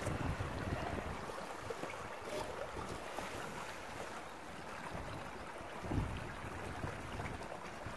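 Wind buffeting the microphone, rising and falling in gusts, with a stronger gust about six seconds in.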